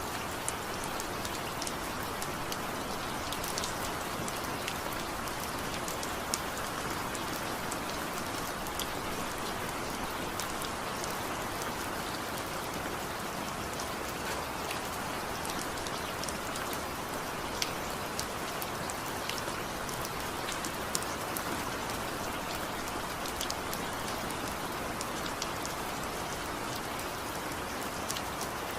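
Steady rain falling, with scattered sharp drips of individual drops landing on a surface, without thunder.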